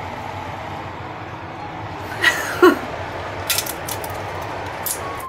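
Crisp potato chips crunching as they are bitten, a few sharp crackles about three and a half seconds in and again near the end, over a steady background hiss. A brief voice-like sound comes about two seconds in.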